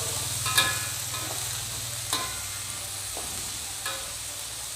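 Long beans stir-frying in a pan: a steady sizzling hiss with a low steady hum beneath, and a utensil knocking sharply against the pan three times with a brief ring.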